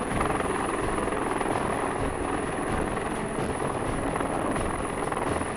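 Large military transport helicopter running, its main rotor and turbine engines making steady, even noise with a thin high whine held above it.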